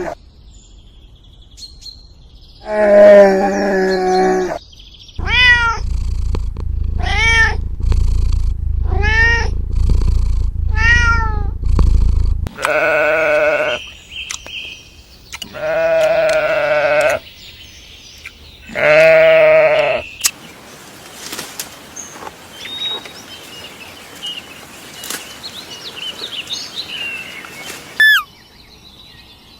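A series of animal cries. First one call, then five short calls that rise and fall, about one a second, then three longer, drawn-out calls. After that come quieter background sounds with a few small chirps.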